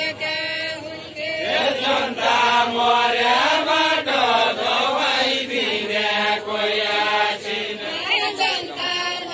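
A group of men singing a deuda folk song together, in long chant-like phrases whose held notes rise and fall, with brief breaks between phrases.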